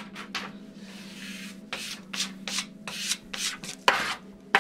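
A flat card scraped back and forth across a tabletop in short repeated strokes, about two a second, with a sharp tap of the card on the table near the end.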